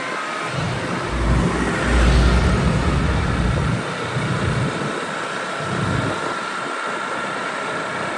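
Road traffic with a large vehicle passing: engine and road rumble swell, loudest about one to four seconds in, then ease off into steady traffic noise.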